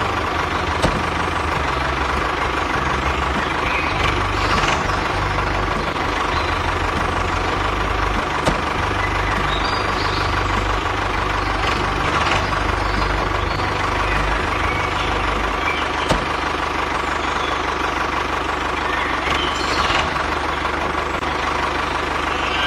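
A small motor running steadily with a constant whine, with a few sharp clicks.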